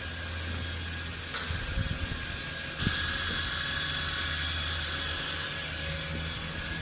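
Small electric motor of a homemade matchbox toy helicopter spinning its propeller with a steady whir. The whine gets louder and brighter about three seconds in.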